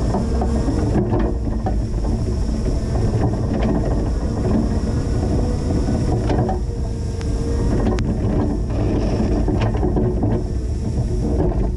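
Linde H20 EVO forklift running steadily as it plows snow, with irregular rattles and knocks from the machine and its plow.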